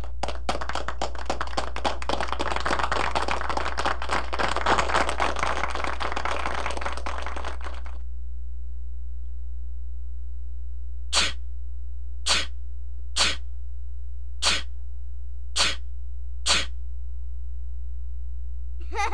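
Dense crackling noise for about eight seconds. After a pause, six short, sharp bursts come roughly a second apart.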